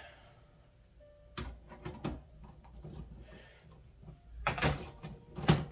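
Light clicks and knocks of the 3D-printed polycarbonate rotating clamp's parts being handled and pulled out, with a louder clatter of knocks near the end.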